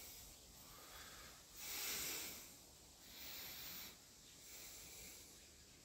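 Faint, soft breathing close to the microphone: three or four breaths about a second and a half apart.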